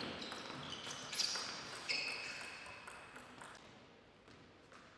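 Table tennis play: a few sharp clicks of the celluloid-type ball on bat and table, with short high squeaks, fading away.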